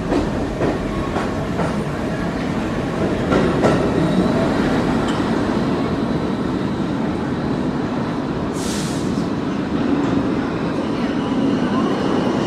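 R46 subway train pulling out of the station, its wheels clacking over the rail joints as it rumbles away. A short burst of hiss comes about two-thirds of the way in. Near the end the rumble grows again with a steady high squeal as another train comes in on the other track.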